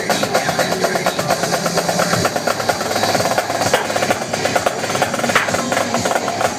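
Live snare and tom drumming in a fast, steady rhythm of many strokes a second, played over electronic dance music.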